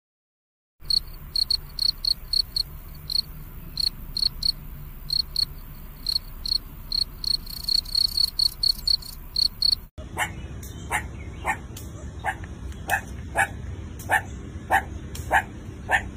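A cricket chirping in short, irregular runs of high-pitched pulses. About ten seconds in it cuts abruptly to a dog barking in short, sharp yaps, about two a second.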